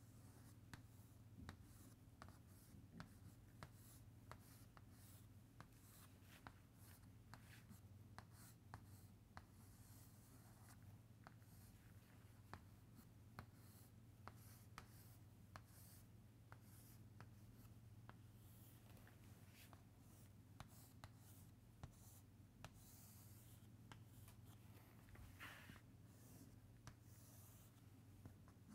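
Chalk on a chalkboard, faint: irregular short taps and scratchy strokes as lines, circles and boxes are drawn, over a steady low hum of the room.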